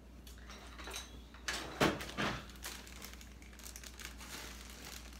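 Plastic marshmallow bag crinkling and rustling as it is handled and pulled open, in irregular bursts with the loudest about two seconds in.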